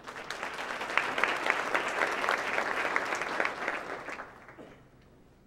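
Audience applauding, many hands clapping at once, the clapping tapering off and dying away about four and a half seconds in.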